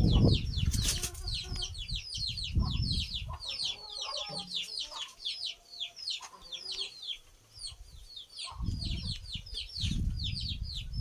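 Birds chirping continuously, short falling chirps several a second, with low rumbling knocks at the start, about two and a half seconds in, and again over the last couple of seconds.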